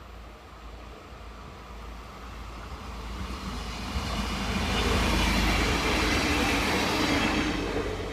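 A train passing on the line, its rolling noise growing louder to a peak about five to seven seconds in and then fading as it goes by.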